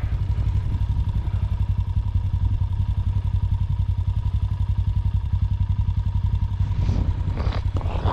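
Honda TRX90 ATV's small single-cylinder four-stroke engine idling steadily, with no revving.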